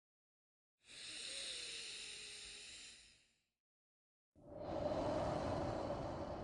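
A person breathing slowly and deeply for a breathing exercise. A thin, hissing breath starts about a second in and lasts over two seconds. After a short silent pause, a fuller, louder breath comes in near the end.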